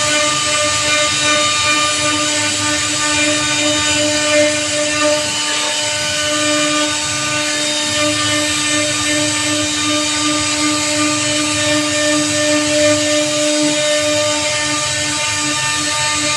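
J-1325 CNC router spindle running at speed with a steady high whine as its bit carves a relief pattern into a teak door panel, the cutting adding a rough, hissing noise.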